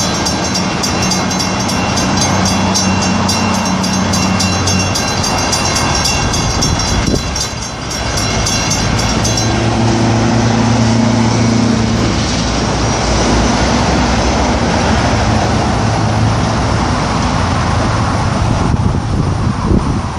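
Railroad crossing bell dinging rapidly, then stopping about halfway through as the crossing gates lift. Under it a work truck on the rails runs its engine steadily, its pitch changing after the bell stops.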